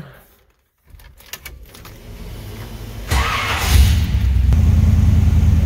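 Keys rattle at the ignition, then a small-block GM V8 with headers and dual exhaust cranks over. About three seconds in it catches with a brief rev and settles into a steady idle, heard from inside the cab.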